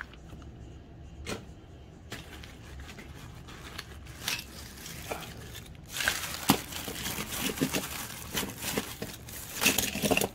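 Handling noise as small diecast toy cars are picked up and turned over: a few separate clicks and taps, then from about six seconds in a busy stretch of rustling and crinkling with many small clicks.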